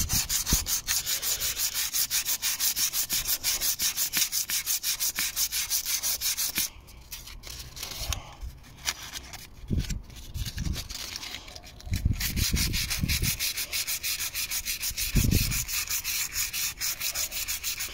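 240-grit sandpaper rubbed back and forth over the curb-damaged rim of a polished alloy wheel, in quick, even strokes of about five a second, sanding down the curb rash. The strokes stop for about five seconds midway, with a few low knocks, then start again.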